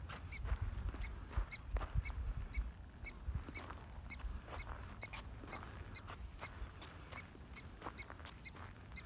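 Mexican prairie dog giving its repeated alarm bark: short, high chirps about twice a second, typical of a colony member warning of an approaching person. Low wind rumble on the microphone underneath.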